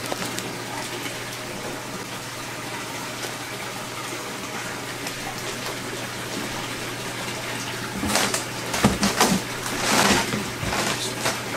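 Aquarium system running: a steady rush of circulating water with a steady low hum. From about eight seconds in, a few seconds of irregular rustling and handling noise, as of plastic fish bags in a styrofoam shipping box.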